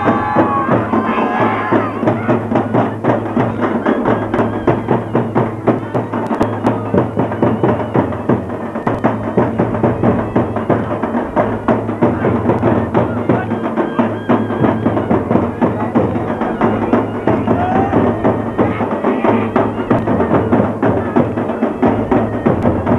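Fast, steady rhythmic percussion of Muharram matam: drumming with sharp hand strikes as a group of mourners beat their chests to the beat.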